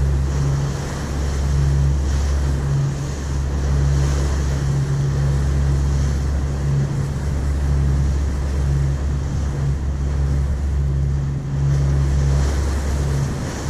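Passenger ferry under way: its engines drone steadily with a low hum, over the rush of water along the hull and wind on the microphone.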